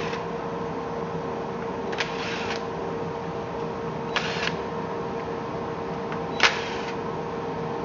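Steady workshop machine hum with three short hissing bursts about two seconds apart.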